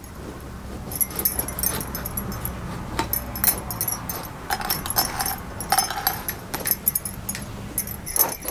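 Knife cutting thin rounds from a raw green eggplant held in the hand: a string of short crisp cuts, with the glass bangles on the wrist jingling along.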